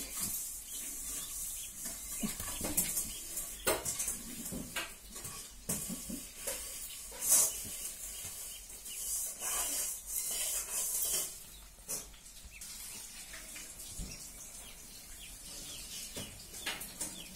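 Newspaper crackling and rustling under a dog's paws and a small chick moving about on it, in scattered short crackles, the loudest about seven seconds in.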